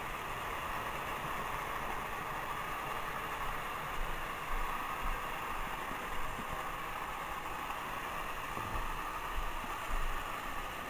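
Small electric motors of several battery-powered Thomas & Friends toy trains whirring steadily as they run laps around the track, with a few soft low bumps.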